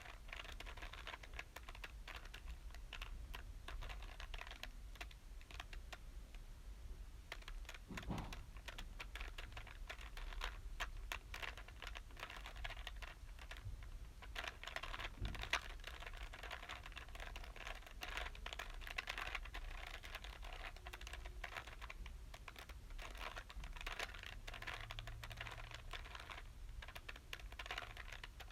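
Plastic Rubik's Cube being twisted by hand: quick runs of small clicks and clacks as its layers turn, with brief pauses.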